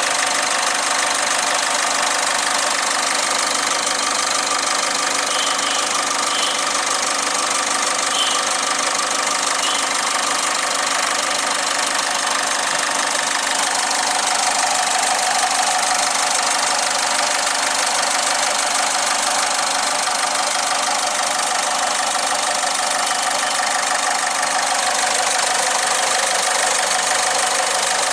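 Ford Figo's Duratorq TDCi diesel engine idling steadily.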